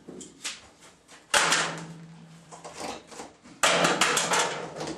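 Rear window glass and its rubber seal being pushed out of a pickup truck's cab opening: two loud clunks with rattling, about a second and a half and three and a half seconds in, each fading over a second or so, with lighter scraping between.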